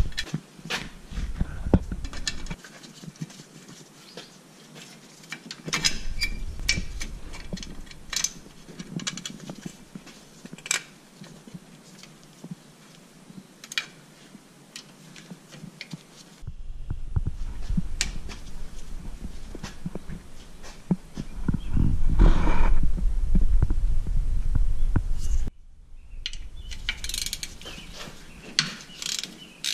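Hand-tool work on a truck's rear differential cover: scattered metallic clicks and clinks of bolts and tools with handling noise, and near the end a run of quick clicks from a 3/8-inch ratchet on the fill plug.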